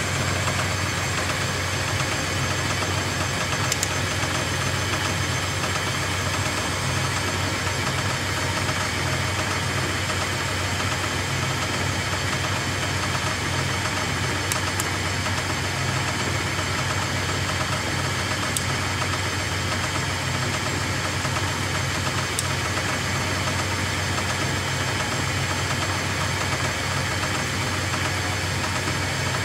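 Hardinge HLV-H toolroom lathe running steadily, with its power feeds engaged: a constant motor and gear hum. A few faint clicks come through.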